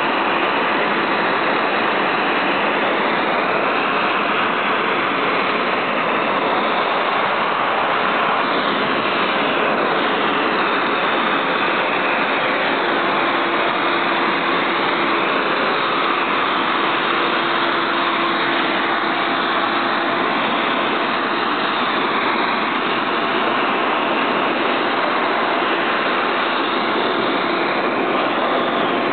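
High-velocity dog grooming blower running steadily, its airstream blowing through a dog's thick coat.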